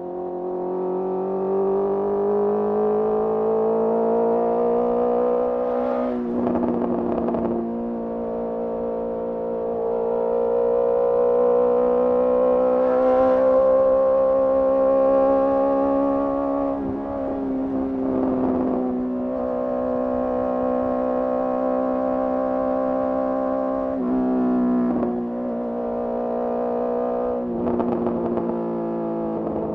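Honda CBR650R's inline-four engine through a MIVV MK3 carbon slip-on exhaust, pulling along at highway speed with a smooth, even drone whose pitch climbs gently, holds and eases back. There is a short step in pitch near the end, and several brief rushes of noise over the engine.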